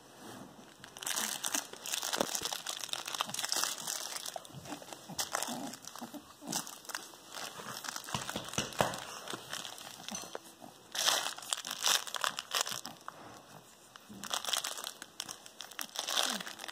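Crinkling and rustling in several bouts with short pauses, as a puppy chews and wrestles a plush toy in a nylon dog bed.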